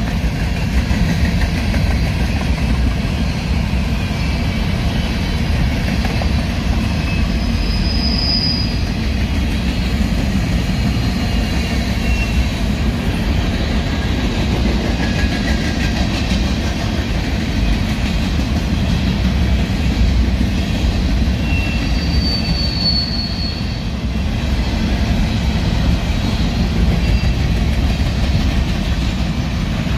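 Covered hopper cars of a freight train rolling past: a steady rumble of steel wheels on rail, with brief high wheel squeals about eight seconds in and again around twenty-two seconds.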